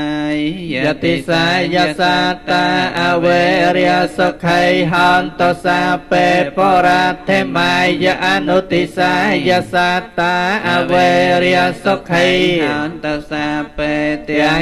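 Buddhist monks chanting Pali verses into handheld microphones: a continuous, melodic recitation with held, gliding notes and short pauses for breath.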